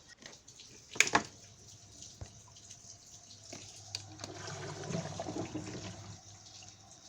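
Water running out through a washing machine's drain valve, held open by the drain motor. There is a sharp click about a second in, and the rush of water grows louder between about four and six seconds in.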